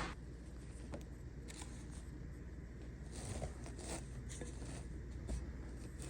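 Faint rustling with a few soft clicks and scrapes over a low steady hum.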